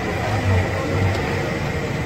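Steady street noise: a low traffic rumble under a faint murmur of voices.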